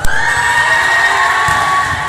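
A group of girls screaming and cheering together in high, held voices, starting suddenly just after a sharp knock and easing off near the end.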